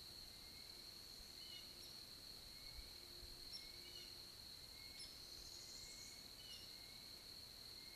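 Faint forest ambience: distant songbirds giving short chirps that repeat every second or so, over a steady high-pitched whine.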